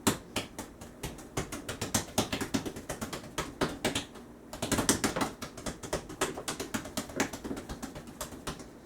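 Hands punching down risen bread dough on a floured work surface: a quick, uneven run of taps and soft thumps, several a second, pressing the air pockets out of the dough.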